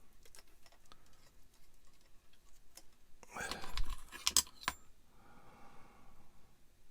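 Small plastic model-kit parts and wire being handled and pressed into place: scattered light clicks and taps, with a louder cluster of clicks and rustling about three and a half to five seconds in.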